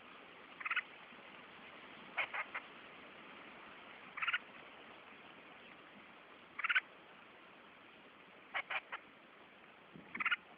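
A bird chirping in short calls about every two seconds, some given as quick runs of two or three notes, over a steady faint hiss.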